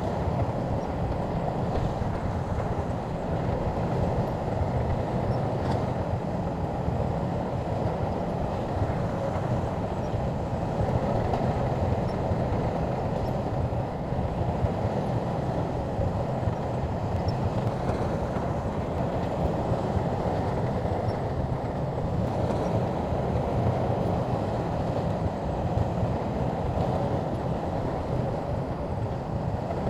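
Shantui crawler bulldozer working, its diesel engine running steadily under load as a low, continuous drone, with track rumble.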